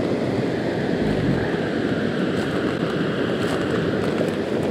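Creek rapids running: a steady, even rush of water with no breaks.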